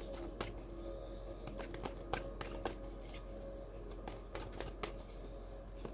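Tarot cards being handled and laid out on a table: scattered soft taps, flicks and slides of card stock, several a second.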